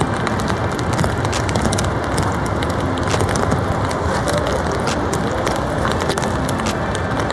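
Heavy rain beating on a cotton-blend (TC) tarp: a steady dense hiss scattered with many sharp drop ticks.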